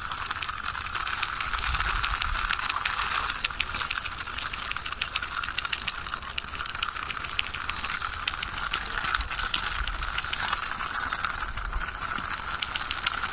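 Small plastic toy pushed along by hand, giving a continuous fast clicking rattle as it rolls.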